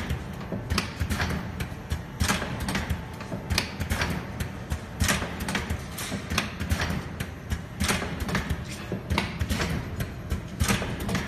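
Suppository filling and sealing machine running: a steady low hum with frequent sharp clicks and clacks from its moving parts, several a second at an uneven pace.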